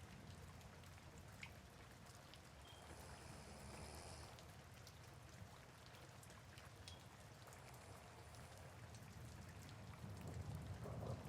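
Faint soft rain with scattered light drop ticks. Under it, a sleeping person's slow breathing or snoring recurs about every five seconds and gets louder near the end.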